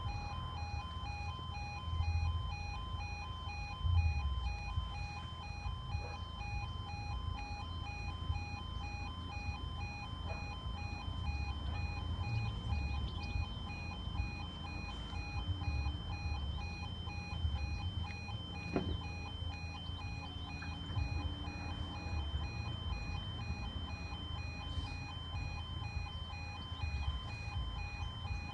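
Audible warning alarm of a miniature-warning-light level crossing, sounding as a steady, evenly pulsing electronic tone while the red light shows: the warning that a train is approaching. A gusty low rumble runs underneath.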